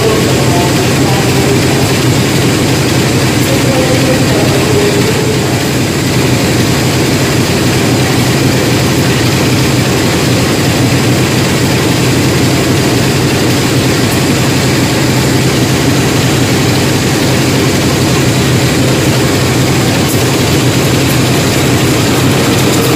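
Diesel engine of a standing train idling, a loud, steady drone with an even low hum that does not change.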